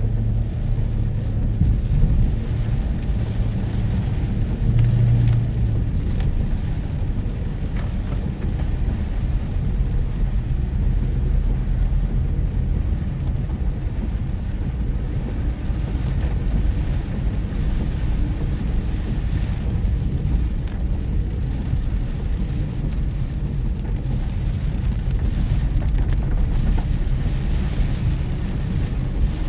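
Mitsubishi Pajero Mini driving, its engine and road noise a steady low rumble. The engine tone is stronger for the first few seconds, most of all about five seconds in.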